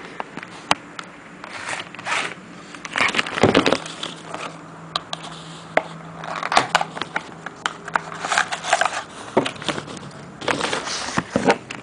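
A knife package being opened by hand: irregular rustling, crinkling and scraping of the wrapping, with sharp clicks, coming in several bursts.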